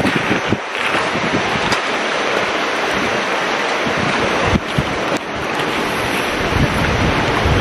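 Steady rush of a fast-flowing river in flood, with wind buffeting the microphone in low, uneven rumbles.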